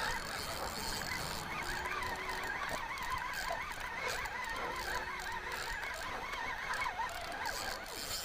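Spinning fishing reel being cranked fast while retrieving a small hooked fish, its gears giving a continuous whine that wavers up and down several times a second with each turn of the handle.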